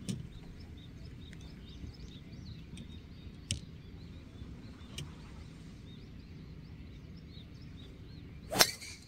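A golf driver strikes a teed ball with one sharp crack about half a second before the end. Birds chirp and tweet throughout.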